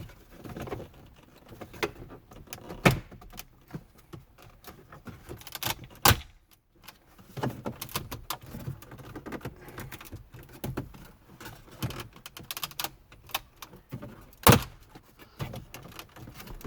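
Hard plastic dash trim bezel of a 2018 Ram 1500 being worked loose by hand: a run of small plastic rattles and knocks, with three sharp snaps about three, six and fourteen and a half seconds in.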